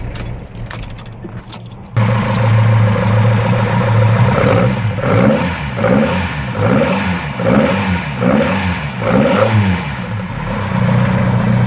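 Ford 2.0 Pinto SOHC four-cylinder engine, still cold just after its first start in six months, blipped by hand at the carburettor linkage. It revs up and drops back about eight times in quick succession, then settles to a steady idle near the end. Intake noise comes through an open-trumpet side-draught carburettor.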